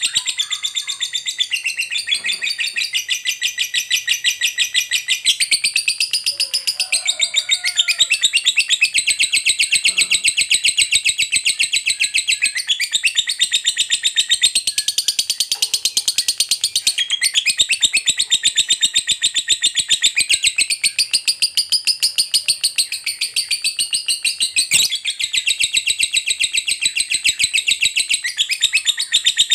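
Lovebird's long ngekek: a continuous, shrill, rapid-fire chatter of many notes a second, going on almost without a break.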